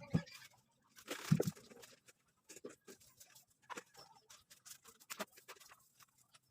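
Scattered light clicks and knocks from objects being handled, with two louder thumps in the first second and a half.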